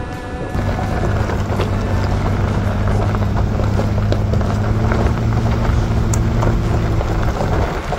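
Nissan Frontier pickup driving on a gravel road, heard from inside the cab: a steady low engine drone over the rumble and crunch of the tyres on gravel. The drone holds from about half a second in until just before the end.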